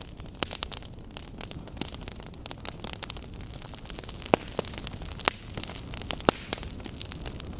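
Campfire burning: a steady hiss with irregular sharp crackles and pops, a few louder snaps about halfway through.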